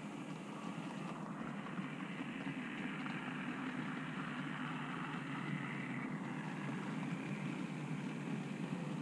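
OO gauge model steam locomotive, a BR Standard Class 5, and its train of cattle wagons running past on model track: a steady rumble of wheels on rail with motor whirr, a little louder as the locomotive goes by.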